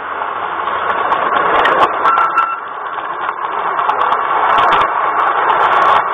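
LGB garden-railway model train running along the track, heard from on board: a steady whirring of motor, gears and wheels on the rails, with a few short clicks.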